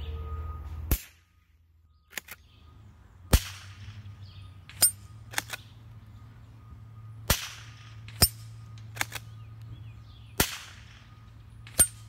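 A Blaser R8 straight-pull rifle fitted with a .22 Long Rifle conversion barrel fires shot after shot, several sharp cracks a second or two apart. Fainter sharp sounds fall between them.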